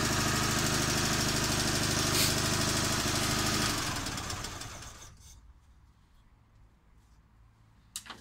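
The AC Model 70's Steyr-Puch flat-twin engine idling a little fast on a sticking throttle, then switched off about four seconds in and dying away within a second or so. One sharp click near the end.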